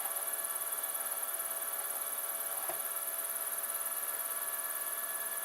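Extruder stepper motor humming steadily with a few fixed tones as it drives a belt-drive filament feeder in reverse, the retraction direction. A faint click nearly three seconds in.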